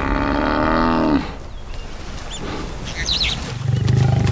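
An African buffalo bellows, a long drawn-out call that drops in pitch and stops about a second in. Near the end a lion's low growl starts up.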